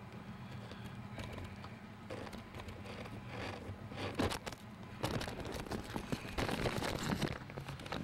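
A boat's motor running steadily under way, with rustling, bumping and clicking from the camera being handled, building after a couple of seconds and loudest in the last few seconds.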